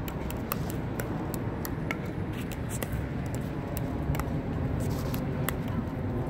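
Pickleball paddles tapping a plastic ball and the ball bouncing on the hard court in soft dinking rallies: an irregular run of sharp clicks, several a second.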